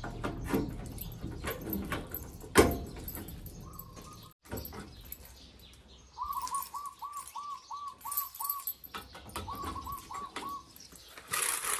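Keys jangling and clicking in the lock of a coin-operated washing machine's coin box, with one sharp click about two and a half seconds in. In the second half, a bird calls in two quick runs of short repeated notes, about seven and then about five.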